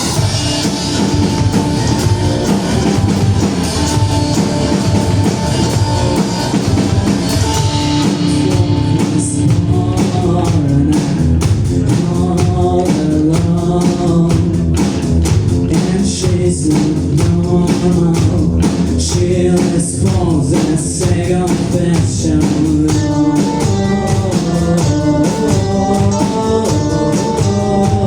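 A rock band playing live: electric guitar and a drum kit. The cymbals come in more strongly about nine seconds in.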